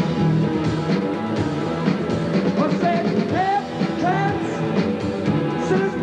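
Live rock band playing: hollow-body electric guitar and drum kit. A singer joins about halfway through with sliding, drawn-out notes.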